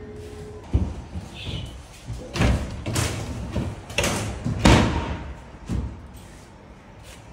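Dull knocks and thumps, about six spread over a few seconds, as film-faced plywood sheets are shifted, set down and pressed into place on a floor; the loudest comes about four and a half seconds in.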